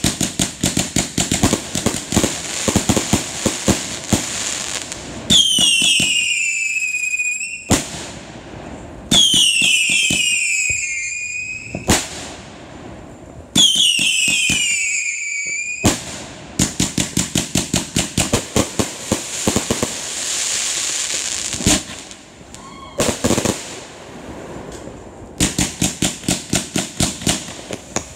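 Consumer firework cakes firing: rapid volleys of shots and bursting reports, several a second. Three whistling shots in the middle, each a whistle of about two seconds falling in pitch.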